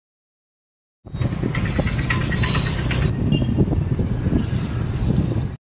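Freight train of hopper wagons rolling past: a steady rumble with irregular wheel clatter. It starts suddenly about a second in and cuts off abruptly at the end.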